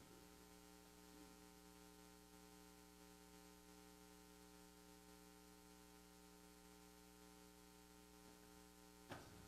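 Near silence with a steady, faint electrical mains hum, and a faint click about nine seconds in.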